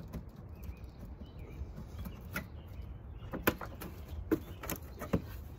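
A cardboard target being handled against a wall: about five sharp taps and knocks, the first a little after two seconds in and the rest close together near the end, over a steady low rumble.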